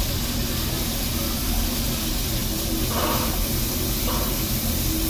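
Narrow-gauge steam locomotive Walter E. Disney standing with steam hissing steadily.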